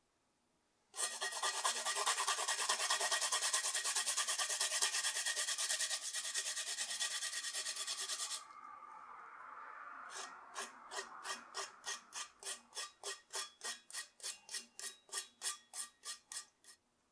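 A rough rasping or scraping, continuous and rapid for about seven seconds, then after a short pause a run of separate strokes about three a second.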